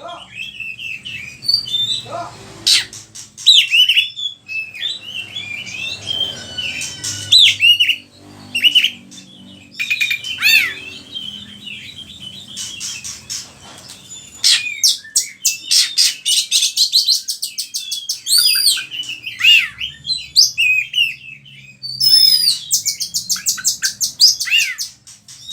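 Oriental magpie-robin (kacer) in full song, running through a varied string of its learned imitated phrases: loud whistled sweeps and chirps broken by fast, rattling runs of repeated notes, the longest about halfway through and near the end.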